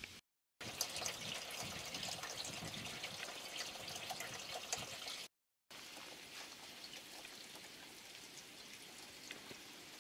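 Water running from a garden hose into a half-cut plastic barrel, a steady pouring trickle. The sound drops out twice for a moment and is a little quieter after the second gap.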